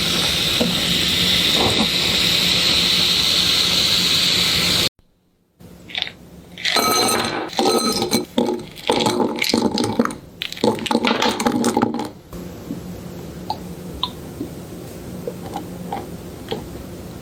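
A drink being made in a glass: a steady hiss of pouring liquid for about five seconds, then after a short break a run of ice and glass clinking with ringing tones, easing into faint scattered ticks near the end.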